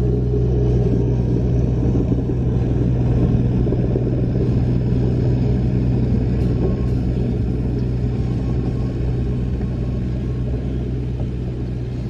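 Caterpillar 302.7D mini excavator's diesel engine running steadily as the machine pushes snow along with its dozer blade.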